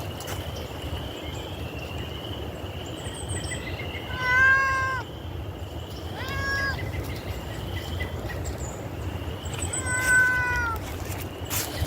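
Domestic cat meowing three times: about four seconds in, again a couple of seconds later, and once more near the end. Faint, repeated high trills of insects or birds run underneath.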